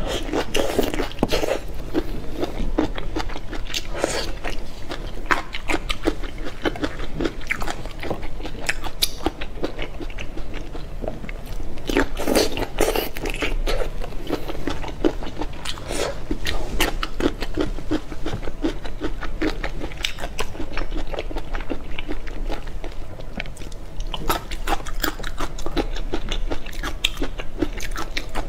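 Close-miked eating of raw soy-sauce marinated shrimp: biting and chewing with many small sharp crunches of the shells, going on all through.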